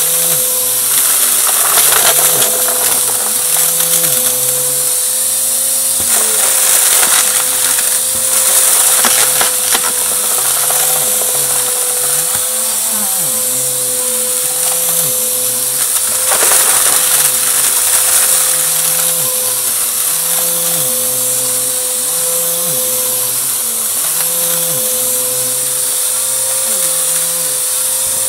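Bissell AeroSwift vacuum cleaner running with a steady motor whine and rushing airflow hiss, crackling as it sucks up crunchy debris.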